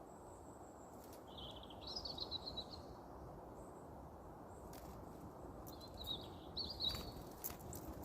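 A small songbird singing two short trilling phrases, about a second and a half each, over a steady low background hiss, with a few faint clicks.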